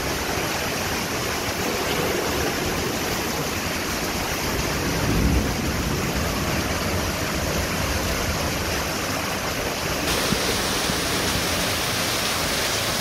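Heavy rain pouring down on ceramic roof tiles and window ledges, a steady hiss of water. There is a brief low rumble about five seconds in, and the hiss gets brighter about ten seconds in.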